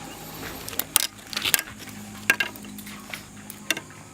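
Irregular sharp clicks and light clinks, about half a dozen, the loudest about a second in and again past the two-second mark.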